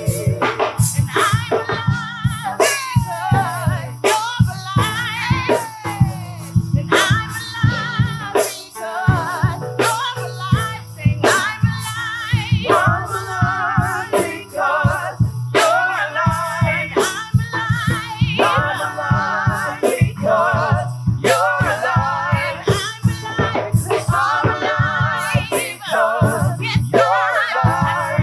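Live gospel worship music: singers holding wavering, ornamented sung lines over a band with drums, percussion and bass.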